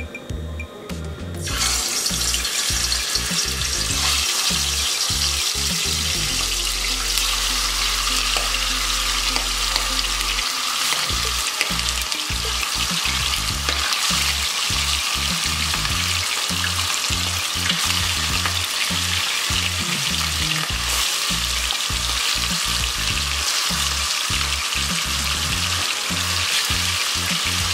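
Chicken pieces deep-frying in hot oil: a loud, steady sizzle that starts suddenly about a second and a half in as the first pieces go in, and keeps going while more pieces are added by hand.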